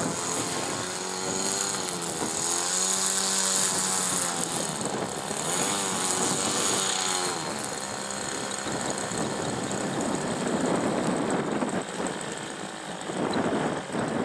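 Radio-controlled model BAE Hawk jet running its motor on the grass, the pitch sweeping slowly up and down through the first half, then giving way to a rougher rushing noise.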